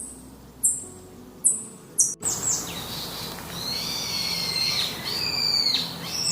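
Bird calls in two parts. First comes a short, very high-pitched call repeated about every 0.7 s. Then, after an abrupt change at about two seconds, a different bird gives longer whistled calls that slide up and down in pitch.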